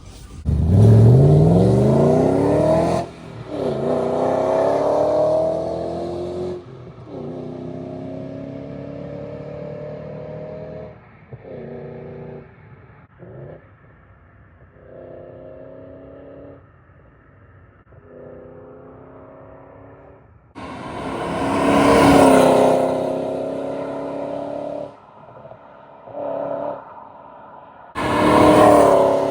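Car engine accelerating hard, its pitch climbing steeply and dropping back at each gear change, then running steadier and quieter before two more loud bursts of revving near the end.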